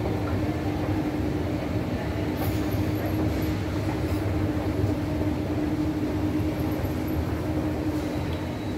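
Escalator running: a steady low mechanical rumble with a constant hum, the hum fading out near the end.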